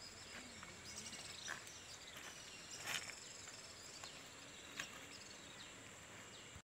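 Faint outdoor riverbank ambience: a steady high insect drone with three or four brief, faint clicks.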